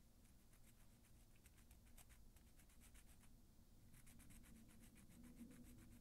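Faint, rapid scratching of a nail file rubbed back and forth along the side edge of a fingernail, about six strokes a second, with a short pause a little past the middle.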